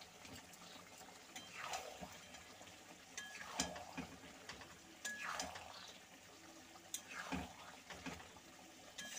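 Metal spatula stirring a thick, simmering vegetable curry in a metal kadai: four slow, wet scraping strokes against the pan, with a few small clicks of metal on metal.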